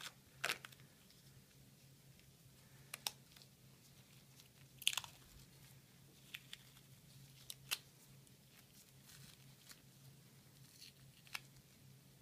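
Tegaderm transparent film dressing being peeled off skin by gloved fingers: scattered faint crackles and crinkles of the plastic film, a few seconds apart, over a faint steady low hum.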